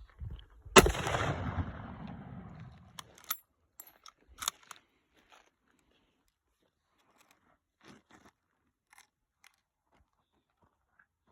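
A single loud Mauser rifle shot with a long echoing decay, followed by a few sharp clicks about two to four seconds in.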